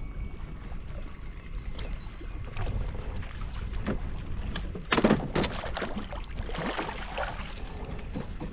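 Low wind rumble on the microphone aboard a fishing kayak, with a sudden loud burst of knocks about five seconds in and some rustling after it.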